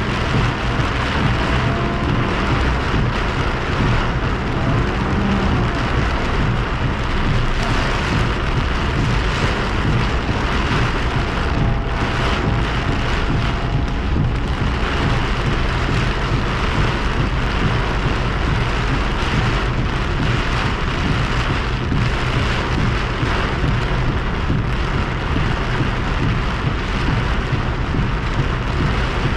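Torrential rain drumming on a car's windshield and roof, heard from inside the car: a steady, loud, dense rush with a deep rumble underneath.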